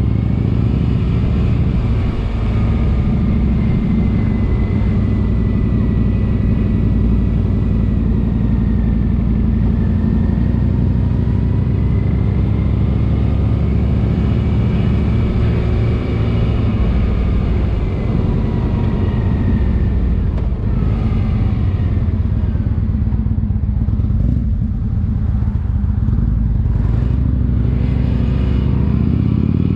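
Motorcycle engine running steadily, its pitch drifting slowly up and down.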